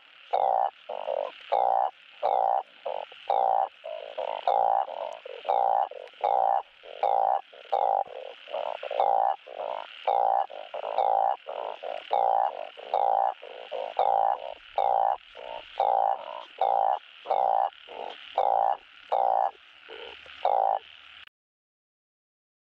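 Truncate-snouted burrowing frog (Glyphoglossus molossus) giving its mating call: short croaks repeated about one and a half times a second, which stop abruptly near the end.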